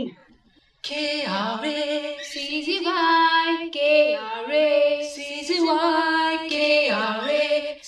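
End-credits song: a high voice singing a line with sliding, swooping notes, starting about a second in after a brief silence.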